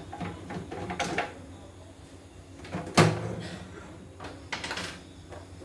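An embroidery machine being handled and turned over on a wooden workbench: a few light clicks and rattles, then one loud knock about three seconds in as the machine is set down on end, followed by more clatter from its plastic housing.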